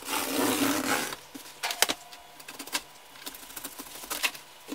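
Packing tape on the seam of a cardboard box being slit open with a small cutter: a rasping cut lasting about a second at the start, then scattered small clicks and scrapes of the blade against tape and cardboard.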